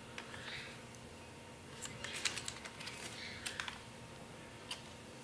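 Light clicks and soft rustles of hard plastic being handled: a folded drone turned over in the hands, with small clusters of clicks about two and three and a half seconds in.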